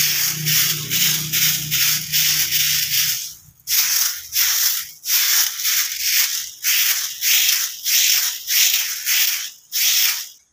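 A broom sweeping dry leaves across a grass lawn, at first as one continuous scratchy rustle, then as regular strokes about two a second. A faint low hum runs underneath for the first three seconds.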